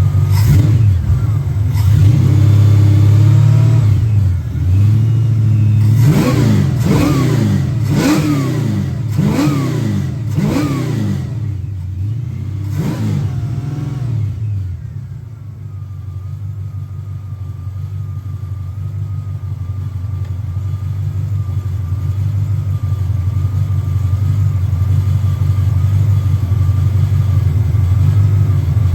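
Mopar 340 small-block V8 revved in a series of quick throttle blips, about one a second, then settling back to a steady idle for the second half. The engine is freshly tuned, with its timing set and carburetor adjusted.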